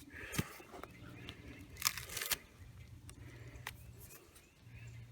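Thick bark being torn off a log: a few sharp cracks and scraping, the loudest about two seconds in.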